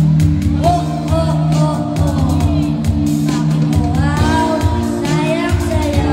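A young boy singing into a handheld microphone over a backing track, both amplified through a PA sound system, with held chords and a pulsing bass under the voice.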